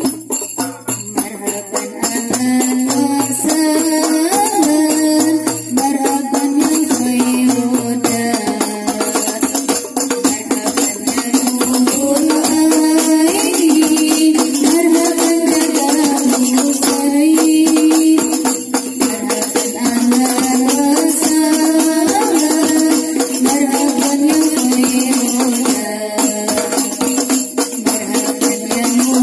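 Girls' voices singing sholawat, an Islamic devotional song, to a Javanese melody through microphones, over a steady jingling percussion rhythm.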